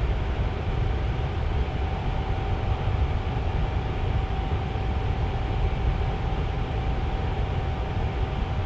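Tower fan running steadily: an even airy rush, heaviest in the low end, with a faint steady hum from its motor.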